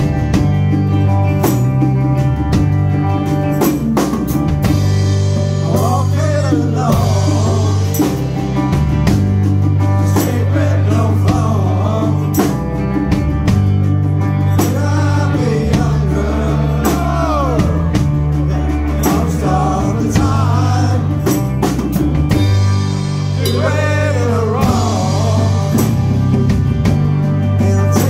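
Live rock band playing: electric guitar, bass and drums keep a steady groove. A man's lead vocal comes in about six seconds in and runs on through most of the rest.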